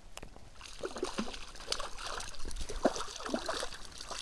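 Hooked crucian carp splashing and thrashing at the water surface as it is played in on a float rod, with irregular sloshes and gurgles that start about a second in and grow louder.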